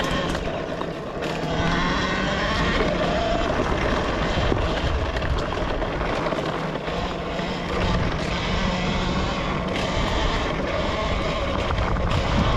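Talaria Sting electric dirt bike riding fast over a rough dirt trail: the electric motor's whine rises and falls in pitch with the throttle, over a steady rush of wind and the knocking of tyres and suspension on the bumpy ground.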